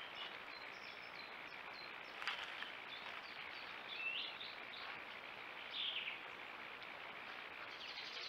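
Steady hiss of a trail camera's microphone, with scattered short high chirps of birds calling. A brief rustle comes about two seconds in.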